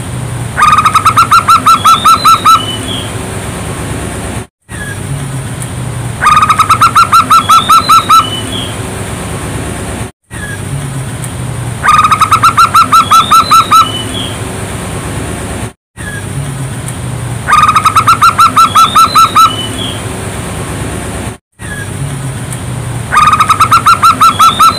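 Zebra dove (perkutut) song: a phrase of about a dozen quick, staccato coos lasting about two seconds, ending in a few higher rising notes. The identical phrase repeats five times, about every six seconds, with brief dropouts between repeats, as in a looped lure recording. A steady hiss runs underneath.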